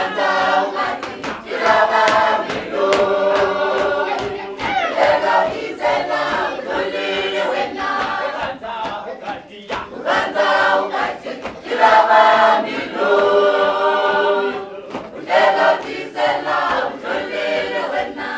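A choir of young women and men singing a lively song together in several voices, phrase after phrase, with short sharp beats throughout.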